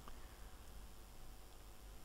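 Faint room tone: a steady low hum with a light hiss.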